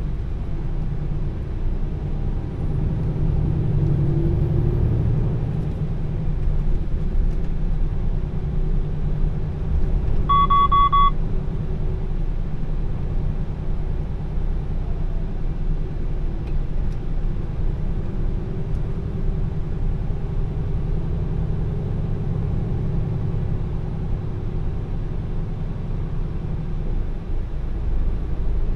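Heavy truck's diesel engine running steadily under way, with low road rumble. A short electronic beep sounds once, about ten seconds in.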